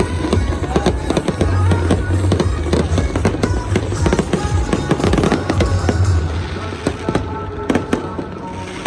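A fireworks display: a dense, rapid string of bangs and crackles that thins out near the end, with music playing alongside.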